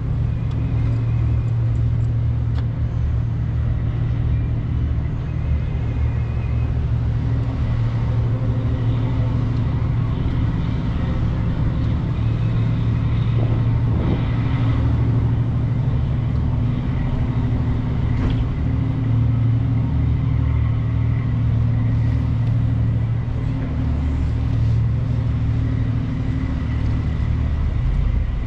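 Steady low engine hum and rumble of road traffic, with a constant drone underneath.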